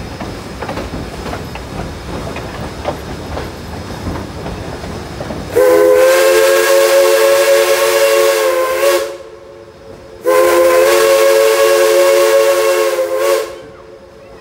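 Steam locomotive No. 6's whistle blowing two long blasts, the first about five and a half seconds in and the second about ten seconds in, each a chord of several notes at once. Before the whistle, the moving train rumbles and its wheels click over the rail joints.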